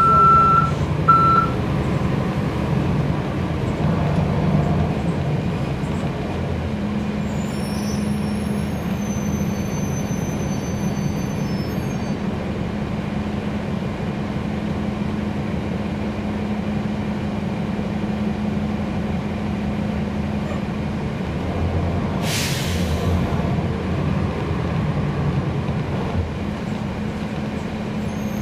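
Cabin sound of a 2011 NABI 40-SFW transit bus with its Cummins ISL9 diesel engine running in a steady drone. Two short beeps at the very start, a faint high-pitched whine for a few seconds early on, and a short hiss of released air from the bus's air system about two-thirds through.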